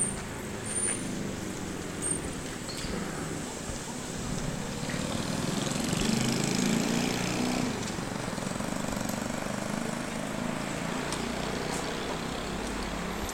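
Steady vehicle noise, a mix of rumble and hiss that swells between about five and eight seconds in as something passes.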